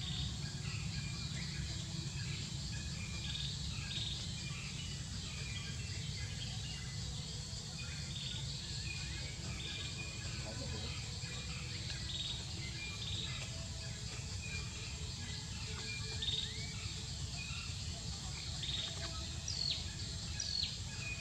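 Outdoor ambience: short scattered bird chirps, a few of them quick rising notes near the end, over a steady high-pitched insect drone and a low rumble.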